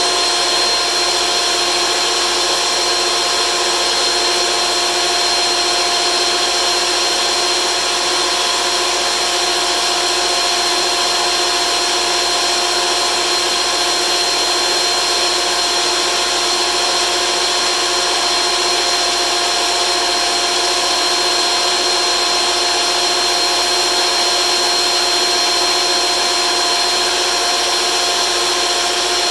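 DeWalt benchtop thickness planer running steadily, a board on a carrier board feeding through it, with a constant high whine over the motor noise.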